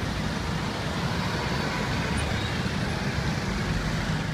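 Steady city road traffic, with a double-decker bus and then a car driving past close by: engine noise and tyre noise.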